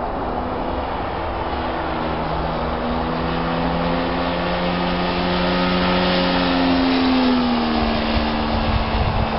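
Radio-controlled model airplane flying overhead, its engine drone climbing slowly in pitch and then dropping about three-quarters of the way in. Low wind rumble on the microphone underneath.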